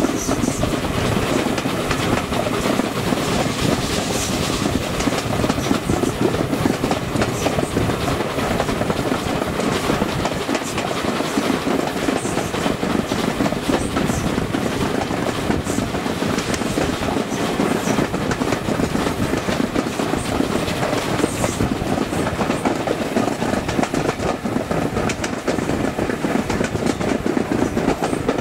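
Passenger train running on the rails: a steady, continuous rumble with the clatter of wheels over the track.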